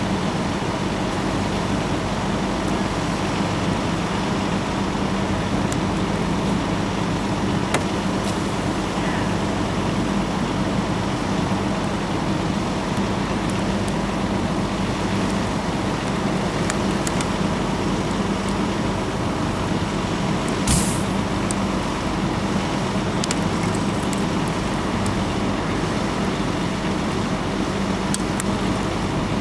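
A steady engine drone with a constant low hum, broken by a few sharp pops, the loudest about twenty seconds in.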